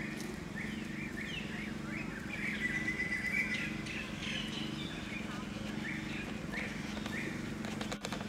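Many short, high chirping animal calls, some sweeping down in pitch, with one longer steady whistled note about three seconds in, over a constant low hum.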